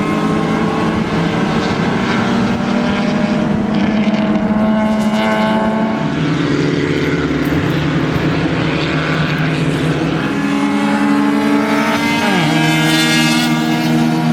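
Racing cars' engines running hard, more than one at a time, their pitch climbing and falling as they accelerate and shift; one engine's pitch drops sharply about twelve seconds in.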